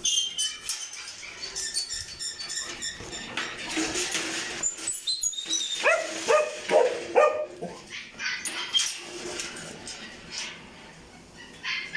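Dogs barking and giving a few short rising yelps, loudest about six to seven seconds in, mixed with knocks and clatter from the metal kennel cage doors being opened.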